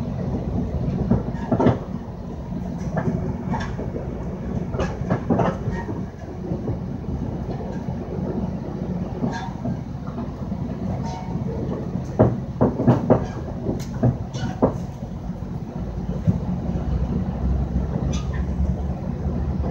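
Steady low rumble of a moving passenger train heard from inside the coach, with wheels clacking sharply over rail joints in irregular clusters, loudest about twelve to fifteen seconds in.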